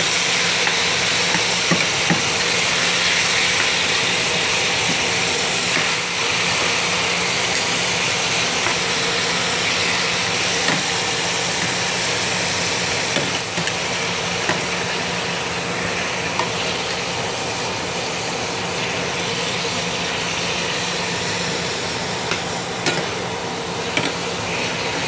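Thin beef steaks sizzling steadily in a hot stainless-steel skillet, with a few metal clicks of tongs against the pan near the end. Under it runs a steady low hum from the range-hood fan.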